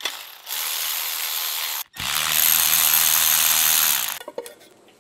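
Power ratchet spinning bolts out of the front of a Holden 304 V8 block, in two runs: a shorter one, then a longer, louder one.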